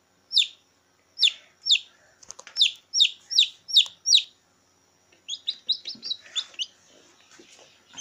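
Chicken chick peeping loud and shrill: a run of falling peeps about two a second, then after a short pause a quicker, softer string of peeps, with a few faint knocks in between.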